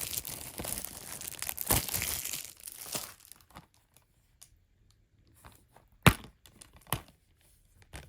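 Plastic wrapping crinkling and tearing as a Blu-ray case is unwrapped for about three seconds, then a few soft rustles and two sharp clicks, the louder one about six seconds in.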